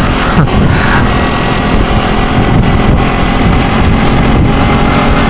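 Kawasaki Ninja 250's parallel-twin engine running at road speed under heavy wind noise on the microphone.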